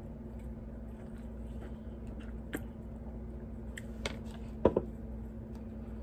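A person sipping and swallowing soda from an aluminium can, with a few small clicks and mouth sounds, the loudest about three quarters of the way through, over a steady low hum.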